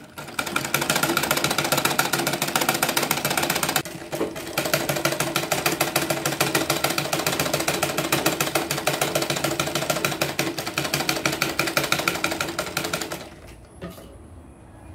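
Usha treadle sewing machine stitching at speed: a rapid, even clatter of needle strokes. It pauses briefly about four seconds in and stops near the end.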